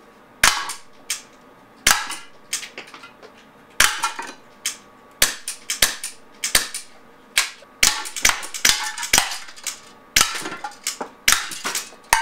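Umarex Walther Nighthawk .177 CO2 pellet pistol firing a string of more than a dozen sharp shots, coming closer together in the second half. Each shot is followed by the clatter of pellets hitting tin cans in a cardboard box.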